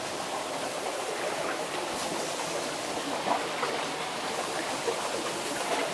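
Steady rush of water running through a flooded mine tunnel, with a few faint knocks.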